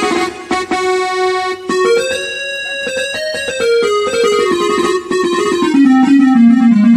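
Casio CT-X series electronic keyboard playing a single-note melody on one of its built-in General MIDI tones. The notes step down steadily in pitch over the last couple of seconds.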